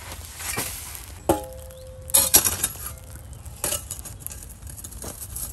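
Metal shovel blade scraping through ash and soil, with one sharp ringing clink about a second in and a few crunchy scrapes after it.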